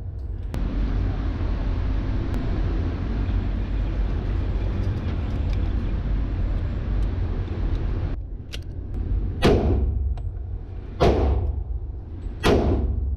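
A .45 ACP Kimber 1911 pistol fired three times, about a second and a half apart, in the last five seconds. Each shot is sharp and echoes in an indoor range. Before the shots, a steady rushing noise with a low rumble runs for about eight seconds and stops abruptly.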